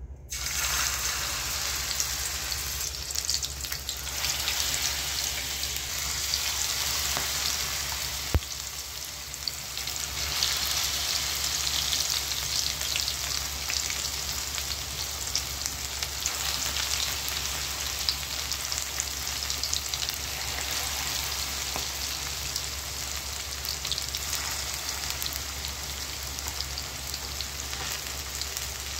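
Spinach, onion and potato pakoras deep-frying in hot oil: a steady, dense sizzle full of fine crackles, with one sharp click about eight seconds in.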